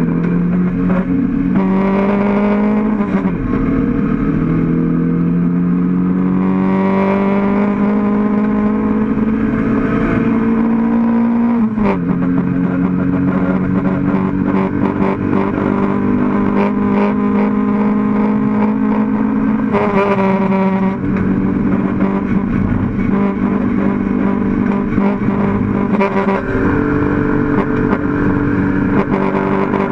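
Mk1 Toyota MR2 race car's engine heard from inside the cabin, pulling at full throttle. Its pitch climbs slowly and drops sharply at gear changes about three, twelve and twenty seconds in, then jumps up about twenty-six seconds in.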